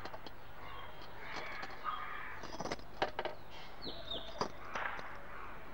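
Faint bird calls, with a couple of short falling chirps about four seconds in and harsh cawing-type calls, among a few light clicks.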